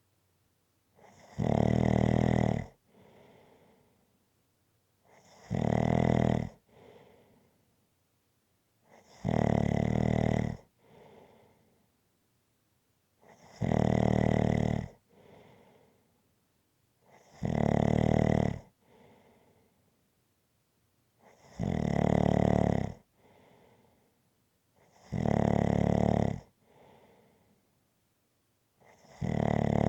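A person snoring in a slow, regular rhythm, about one loud, rattling snore every four seconds. Each snore lasts about a second and a half and is followed by a fainter breath.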